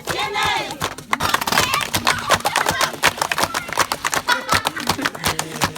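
A crowd of voices calling out, with many sharp percussive beats and a steady low musical drone underneath.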